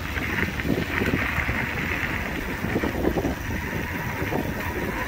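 Samebike XD26 electric mountain bike riding fast on the throttle along a dirt track at about 35 km/h: steady wind rush on the microphone over the rumble of the tyres on the gravel.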